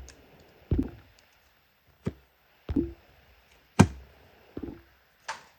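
A series of about six sharp knocks and clicks, spaced irregularly, from slotting a trading card into a hard card holder and handling it against a tabletop.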